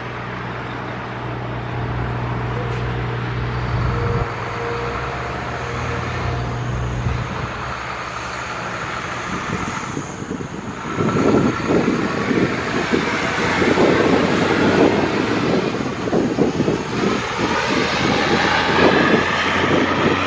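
Road traffic: a steady low engine hum for the first several seconds, then louder, rougher vehicle noise from about eleven seconds in.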